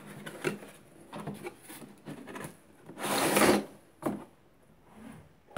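Cardboard box sleeve being handled and slid off a hard plastic carry case: light rustles and scrapes, a louder scraping slide about three seconds in, then a sharp knock about a second later.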